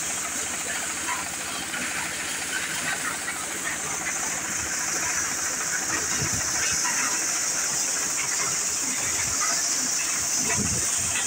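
Engine-driven maize thresher running with cobs being fed into its hopper: a steady hiss with a scattered rattling crackle of cobs and kernels being shelled, over the drone of its engine.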